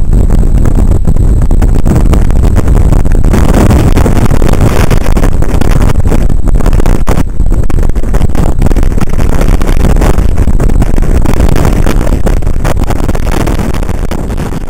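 Strong hurricane wind buffeting the camera microphone: a loud, constant low rumble with a rushing hiss that widens about three seconds in, easing off near the end.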